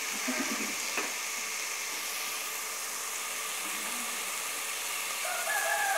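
Vegetables and soya beans frying in oil in an aluminium pot, a steady sizzling hiss as they sauté, with one light click about a second in.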